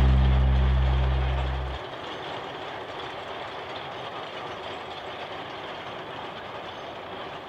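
Background music fading out and ending about two seconds in, giving way to the steady sound of the 1898 Hunslet quarry steam locomotive George B working along the line.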